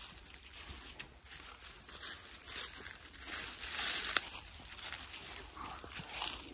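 Footsteps shuffling and crunching through dry fallen leaves as two people walk, in uneven swells, with one sharp click a little past the middle.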